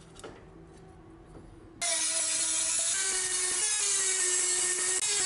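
Hand-held rotary tool with a small burr grinding notches into a steel knife blade's spine. It starts abruptly about two seconds in: a steady motor whine over a grinding noise, the pitch wobbling slightly as the bit bites. Before that only a faint click.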